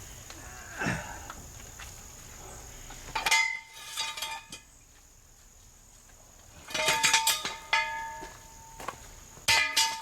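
Metal clanking in three bursts, each with a bell-like ring that hangs on briefly, as hand tools and parts knock together while working on a truck wheel.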